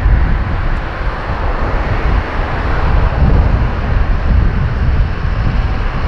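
Embraer E195-E2's Pratt & Whitney PW1900G geared turbofan engines running at takeoff power: a loud, steady jet rumble heaviest in the low end.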